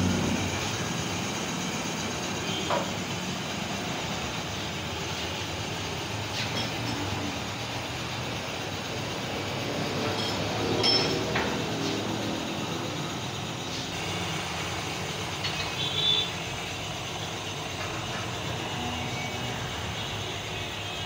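Steady background rumble with a handful of short metallic clinks and taps from hand tools on motorcycle engine parts, a few of them ringing briefly.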